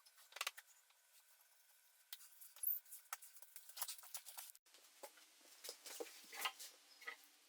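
Faint, scattered light clicks and taps of small parts and hand tools being handled at a workbench.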